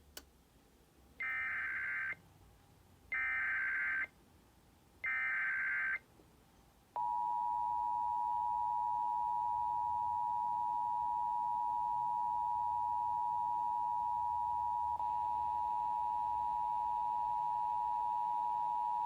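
Emergency Alert System SAME header: three one-second bursts of buzzing data tones a second apart, then the EAS attention signal, a steady two-tone alarm held for about twelve seconds, announcing an emergency alert.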